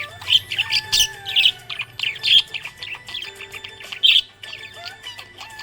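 Budgerigars chirping and warbling in fast, continuous chatter, with a few longer whistled notes beneath the quick chirps.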